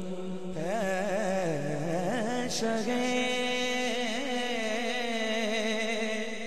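A man singing a naat solo into a microphone, drawing out long, wavering, ornamented notes over a steady low held tone.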